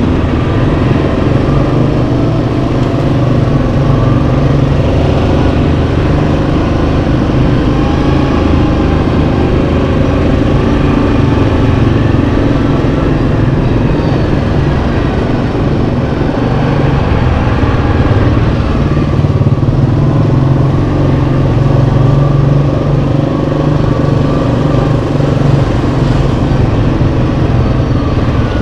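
Yamaha Kodiak 700 ATV's single-cylinder four-stroke engine running steadily while riding, its pitch drifting gently up and down with the throttle.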